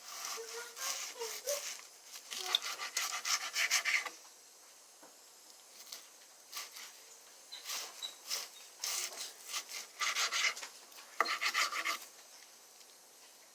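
Knife sawing through raw chicken breast on a cutting board, in bursts of quick back-and-forth strokes with short pauses between.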